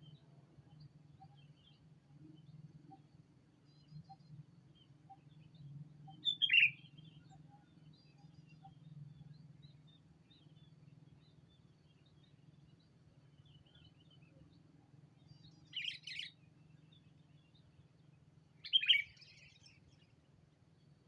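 Sooty-headed bulbul calls: three short, loud, bubbly calls, one about six seconds in and two near the end, with faint chirps between them. A steady low hum runs underneath.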